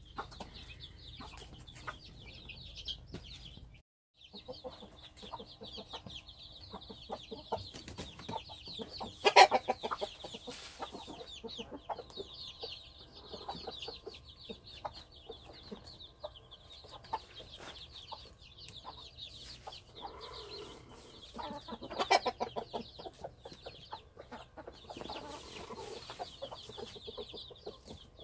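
A brood of Cheonggye chicks peeping nonstop in quick, high chirps, with a hen clucking low now and then. There are two louder moments, about nine and twenty-two seconds in.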